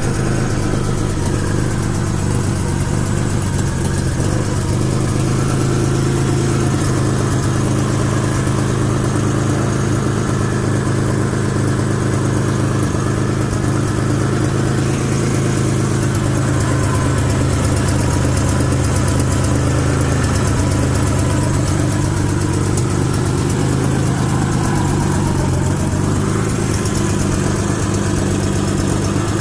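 Carburetted Nissan VG30 3.0-litre V6 idling steadily, its carburettor fitted with a Percy's Adjust-A-Jet for tuning the fuel mixture.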